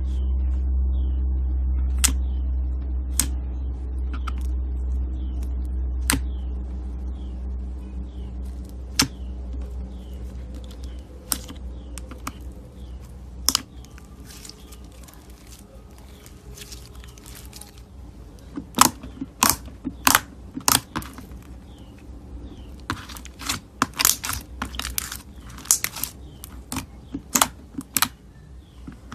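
Slime being squeezed and poked, giving sharp clicks and pops, scattered at first and coming in quick runs over the last ten seconds. A low rumble underneath fades away over the first half.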